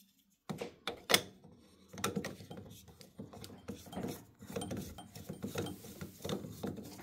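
Plastic cover of a Caleffi magnetic filter being fitted and screwed on by hand: plastic rubbing and clicking on the threads, with a sharp click just after a second in.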